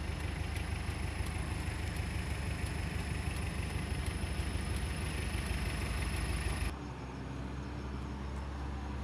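Vehicle engine running steadily at low speed, heard from inside the cab with a broad hiss over a low drone. About two-thirds of the way through the hiss cuts out abruptly, leaving a steadier low engine hum.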